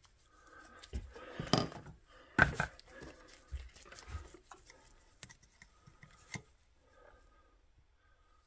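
Light clicks and taps of meter test probes and hands working on a tube radio chassis, a few sharper knocks in the first half, then fainter.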